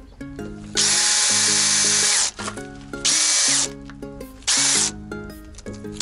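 Electric drill boring holes through the microbus's metal body panel: one run of about a second and a half, then two short bursts, each ending with a falling whine. Background music plays throughout.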